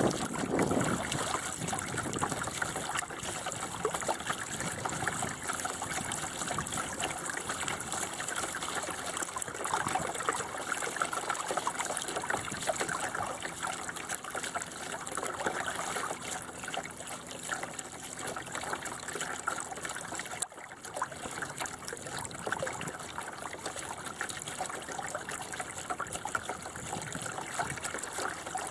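Water washing and trickling along the hull of a 1988 Bauer 10 sailing dinghy under way, a steady wash with one brief drop about two-thirds through.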